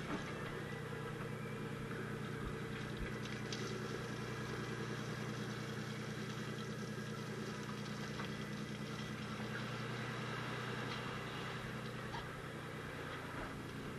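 A fishing boat's engine running steadily, with a steady pitch, under a few faint clicks.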